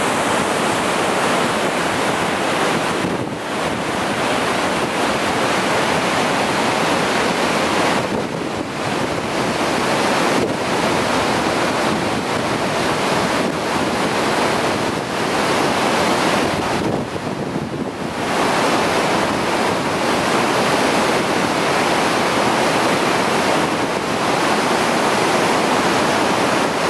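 Dynjandi waterfall's water rushing and crashing, a steady loud roar with a few brief dips in level.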